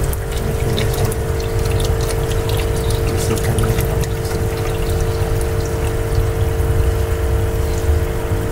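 A small electric pump hums steadily at one pitch over a low rumble, with water trickling and a few faint drip-like ticks.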